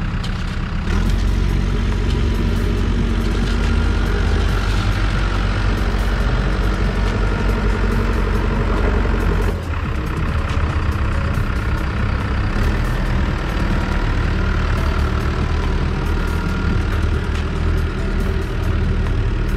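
Caterpillar backhoe loader's diesel engine running steadily, picking up revs about a second in, with a brief dip about halfway through.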